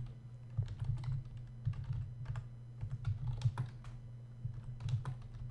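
Computer keyboard being typed on: irregular short key clicks as a date is entered, over a steady low electrical hum.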